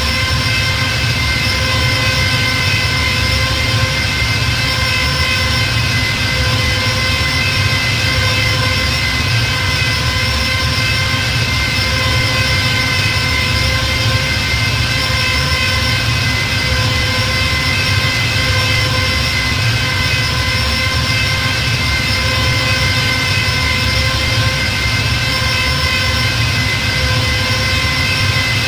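TIE fighter engine sound effect: a steady, unchanging high whine over a low rumble.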